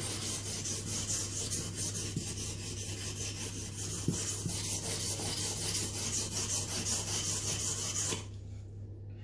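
Mora Bushcraft Black's carbon-steel blade scraping back and forth across a wet whetstone in quick, even sharpening strokes, which stop about eight seconds in.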